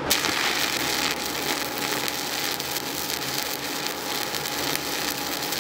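Stick (shielded metal arc) welding with a 7018 electrode: the arc strikes suddenly at the start and then burns with a steady, dense crackling hiss as a cap pass is run.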